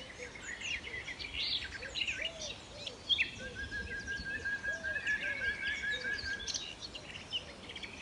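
Common nightingale singing: short varied whistles and sweeping phrases, with a long, fast run of repeated notes lasting about three seconds in the middle. Low arched notes sound now and then beneath the song.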